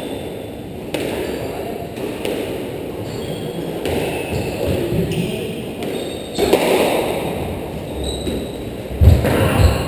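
Squash ball knocks: the ball bouncing and being struck off racket strings and court walls, in scattered single hits, with a few heavy low thuds near the end.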